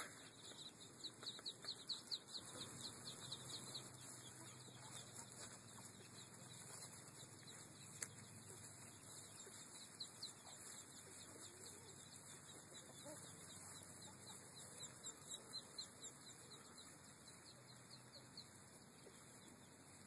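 Muscovy ducklings peeping faintly: rapid runs of short, high peeps, busiest in the first few seconds and again about three-quarters of the way through. A single sharp click about eight seconds in.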